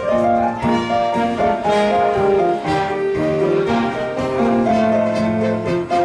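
Church orchestra playing an instrumental piece, with sustained string and piano notes over a moving melody.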